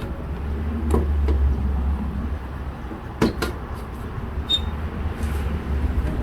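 A few sharp clicks and knocks of parts and tools being handled during a Jeep Liberty radiator install, the loudest pair about three seconds in, over a steady low rumble.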